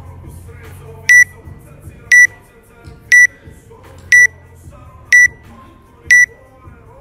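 Electronic countdown timer beeping once a second: six short, loud, high beeps starting about a second in, counting down to the start of a workout.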